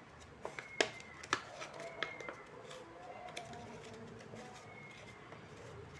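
Scattered light clicks and taps from paper being handled and worked, bunched in the first two and a half seconds and then sparser.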